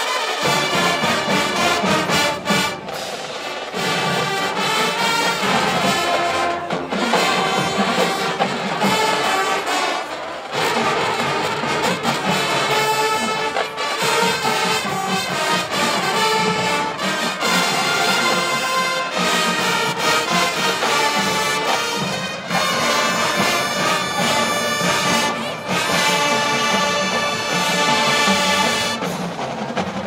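High school marching band playing, with the brass section of trumpets and trombones carrying sustained chords.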